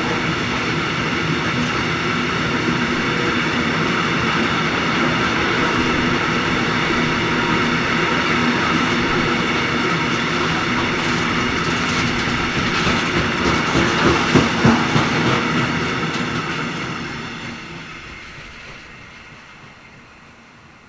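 BR 241 diesel locomotive engines working hard on a heavy freight train, a steady loud drone with a hissing turbo sound. About two-thirds of the way through, wheels clatter over rail joints as the train passes. The sound then fades away.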